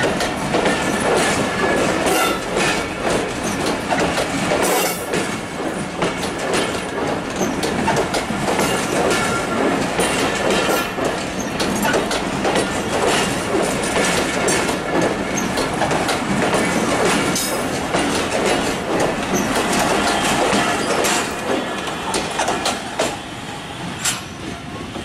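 Passenger coaches of a train rolling past close by: steel wheels clattering over rail joints, with a thin wheel squeal at times. The clatter fades over the last few seconds as the last coach pulls away.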